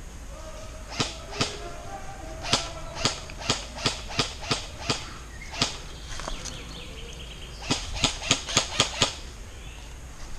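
Airsoft M4-style rifle firing single shots, each a sharp crack: about ten spaced shots in the first half, then a quick string of six, roughly three or four a second, near the end.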